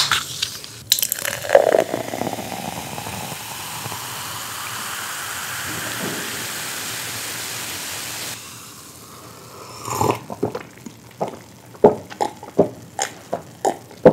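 Diet Coke being poured, a steady fizzing pour that slowly grows louder for about seven seconds and then stops sharply. It is followed by a few short clicks and knocks.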